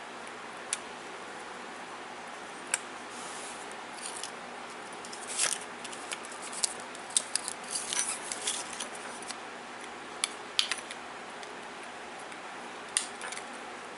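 Small sharp clicks and scrapes from an opened plastic car key fob and its CR2032 coin-cell battery being worked with a fingernail to pry the battery out. Single clicks come at scattered moments, busiest in a flurry from about five to nine seconds in, over a steady hiss.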